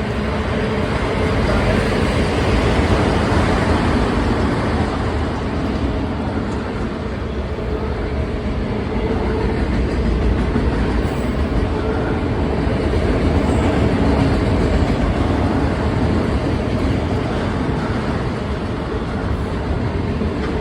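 CSX autorack freight train rolling past, a steady, unbroken rumble of steel wheels on the rails.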